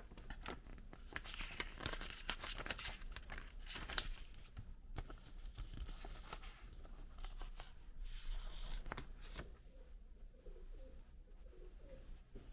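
Packaging being unwrapped and handled: paper or plastic wrap tearing and crinkling, with many small clicks and taps. The rustling is densest in the first few seconds and thins out toward the end.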